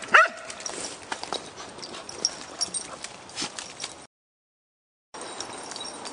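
A dog barks once, sharply, then come scattered knocks and snaps of footsteps and paws on a wet, stick-strewn muddy path. Past the middle the sound cuts out completely for about a second, then resumes as a steady outdoor background.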